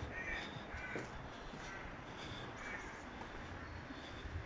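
Crows cawing: a string of short, repeated caws, about one or two a second.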